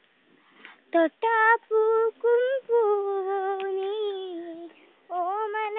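A single high-pitched voice singing a simple tune unaccompanied, starting about a second in with held notes, pausing briefly near the end and then starting the next phrase.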